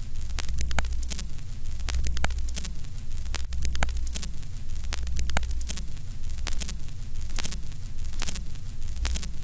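Steady low electrical hum with static, broken by sharp clicks about once or twice a second.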